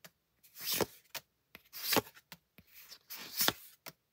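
Pokémon trading cards being slid off a stack one at a time: three swishing slides of card over card, about a second apart, with small taps and clicks between them.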